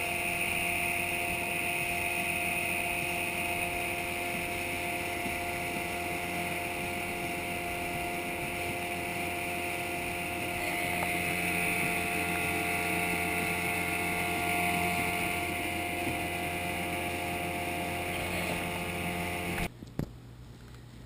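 Mariner 15 hp outboard motor running steadily, driving a 14.5-foot flats skiff along at cruising speed, with wind noise. The sound cuts off suddenly near the end.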